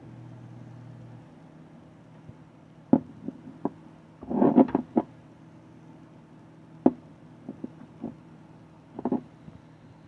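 Desktop PC running with a steady low hum, one hum tone cutting out about a second in, over which come a series of sharp clicks and knocks, with a short clatter about four seconds in.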